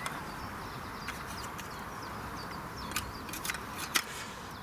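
Faint bird chirps over a steady outdoor hiss, with a few sharp clicks and knocks about three to four seconds in, like the handling of a flask and cups.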